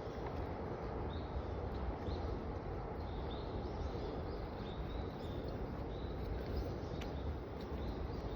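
Outdoor ambience: a small bird chirping over and over in short high calls, about once or twice a second, over a steady low rumble of background noise. A few sharp clicks come near the end.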